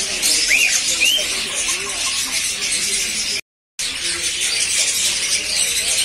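Dense, continuous chattering and chirping of many caged small parrots, cockatiels among them, with a couple of short rising calls about half a second and a second in. The sound cuts out completely for a moment just past halfway.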